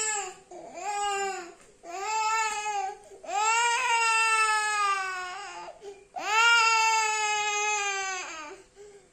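A young boy crying hard in about five long, high wails, with a short break for breath between each. He is crying while being massaged for his cough.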